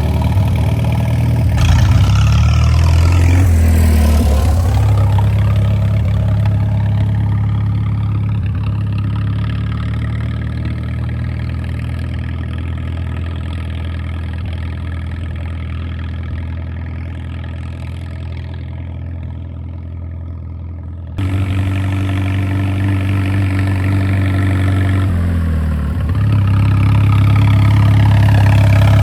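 Gasoline tractor engine running steadily. Its pitch sags and comes back up twice, once a few seconds in and again near the end. About two-thirds of the way through the sound changes abruptly.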